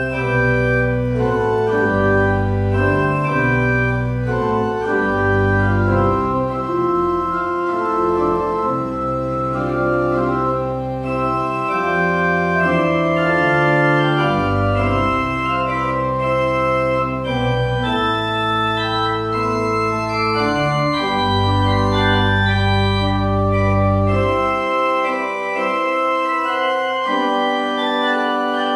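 Church organ playing slow, sustained chords over a deep pedal bass; the bass drops out about four seconds before the end, leaving the upper voices.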